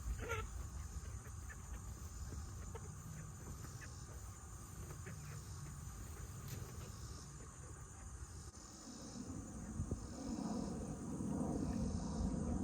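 A young rooster trying to crow among young chickens, over a steady chirring of insects and crickets.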